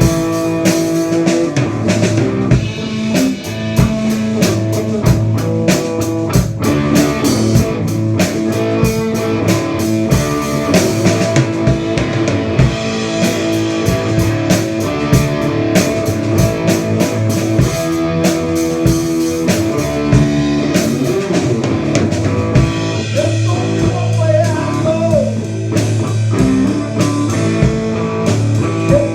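A rock band playing: guitar over a drum kit keeping a steady beat, with bent guitar notes near the end.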